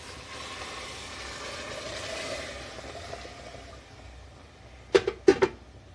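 Spiced chickpea cooking water being poured into a hot pressure cooker of oil-fried black chickpeas, a steady hissing pour for about three and a half seconds. Two sharp knocks follow near the end.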